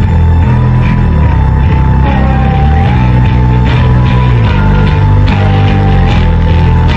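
Loud background music: heavy, rock-like track with sustained low chords and a high two-note line alternating up and down, over a steady beat.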